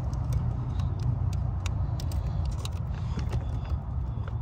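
Small sharp plastic clicks as a metal pick works at the locking tab of a white multi-pin seat wiring-harness connector, over a steady low rumble.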